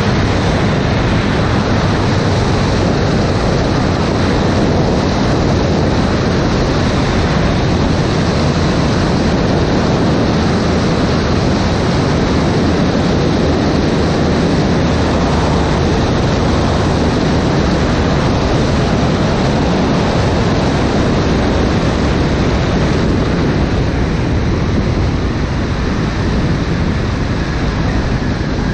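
Single-engine propeller plane's engine and rushing wind on a wing-mounted camera, as the plane lands and rolls out on a grass strip. The noise is steady and loud, easing a little near the end as the plane slows.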